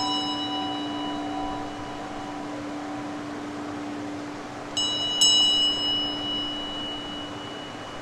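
A singing bowl holds a steady, pure hum, while higher tones from an earlier strike fade away over the first couple of seconds. About five seconds in, a small bell is struck twice in quick succession and rings out. River water runs underneath as a steady hiss.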